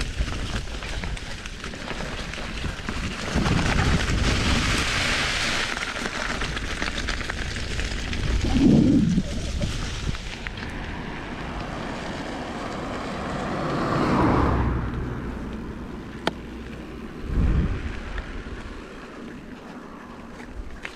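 Wind buffeting the camera microphone over the rumble of mountain bike tyres rolling over a dirt trail, then on smoother tarmac, where the noise thins out from about halfway. Louder swells and a couple of knocks and a sharp click come from the bike jolting over bumps.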